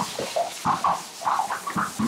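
Hose spraying water over a horse with a steady hiss, under a rapid, irregular run of short animal calls, several a second, that stop near the end.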